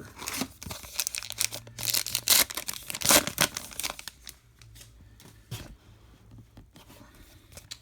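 A baseball card pack wrapper being torn open and crinkled in the hands, a dense run of tearing and crackling for about the first four seconds, then only a few light handling rustles.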